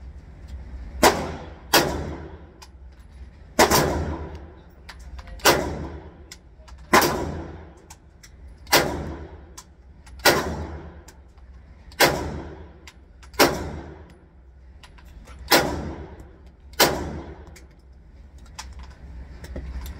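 Walther PDP Pro SD full-size 9mm pistol fired in slow, deliberate shots, about eleven in all, one every second and a half to two seconds, each shot echoing through the indoor range. The shots stop a few seconds before the end.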